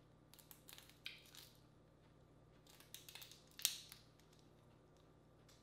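Shells of cooked crawfish cracking and crackling as they are peeled by hand: two bursts of small snaps, the sharpest about three and a half seconds in.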